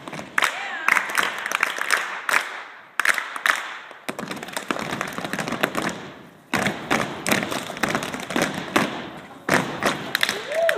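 A group of children doing hambone body percussion: many hands slapping and clapping together in rhythmic phrases, with short pauses between phrases.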